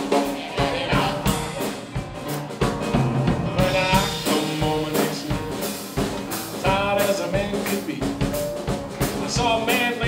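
Live New Orleans rhythm-and-blues band playing with a steady drum beat, piano and brief singing, in a break between sung verses.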